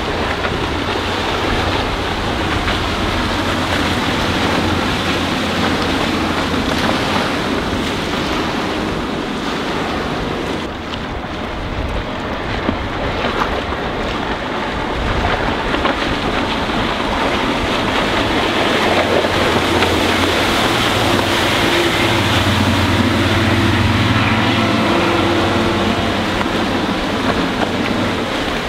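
Wind buffeting the microphone over the steady drone of a speedboat's engine, a Rinker 192 bowrider's Mercruiser 4.3-litre V6 sterndrive running at speed. The engine hum grows louder in the second half.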